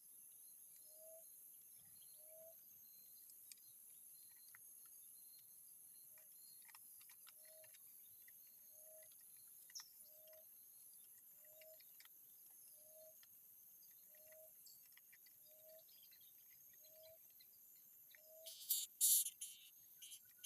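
Outdoor insect chorus: a steady high-pitched drone, with a faint lower call repeating evenly about every second and a half and scattered faint bird chirps. Near the end a loud insect call comes in several quick pulses.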